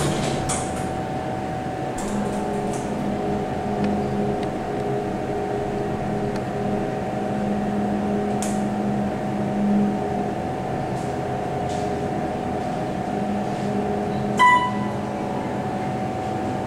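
Otis Series 2 elevator riding up one floor: a steady hum heard inside the cab. Near the end a single electronic chime dings, signalling arrival at the second floor.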